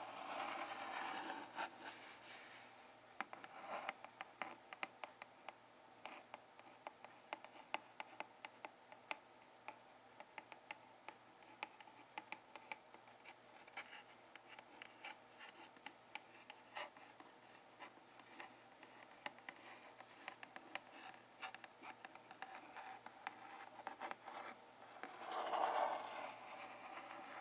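Long fingernails tapping and scratching on a cardboard box flap: quick soft ticks through the middle, with slower rubbing strokes at the start and again near the end.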